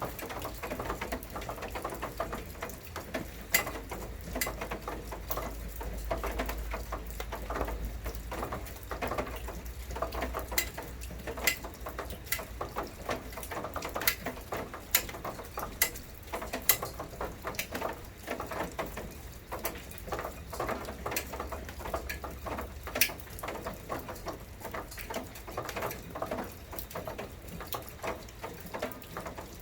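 Rain pattering, with many irregular sharp taps of drops striking close by and a few louder single drips.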